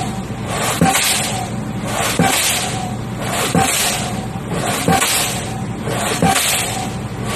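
Pile hammer hung from a crane striking a concrete pile, about one blow every second and a half, five in all, each a sharp metallic bang with a short ring. A hissing rush swells between the blows.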